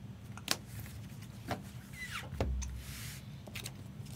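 Light clicks and taps from trading cards in plastic holders being handled at a table. About two seconds in there is a short squeak falling in pitch, then a dull thump and a brief rustle.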